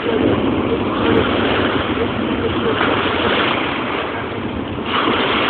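Wind blowing on the microphone over small waves washing onto a sandy shore, a steady rushing noise that swells and eases.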